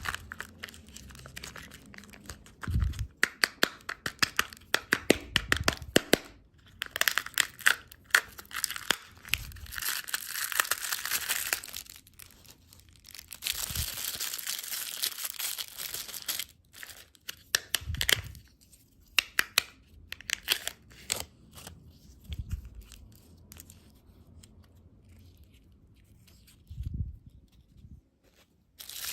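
Plastic candy wrappers and packaging crinkling and being torn open close to the microphone: dense runs of crackles with longer tearing hisses and a few soft thumps, broken by short pauses.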